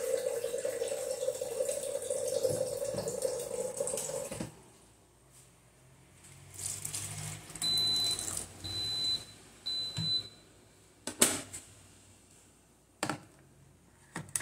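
A tap runs into the sink for about four and a half seconds and then stops. An electric pressure cooker then gives three short high beeps about a second apart, followed by a few sharp clicks as its lid is handled, the last one the loudest.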